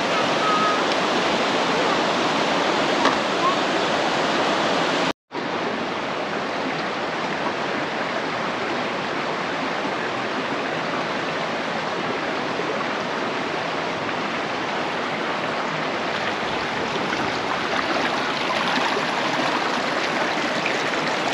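Yuba River rapids rushing over granite boulders: a steady, even rush of white water, cut off by a brief dropout about five seconds in and then continuing slightly quieter.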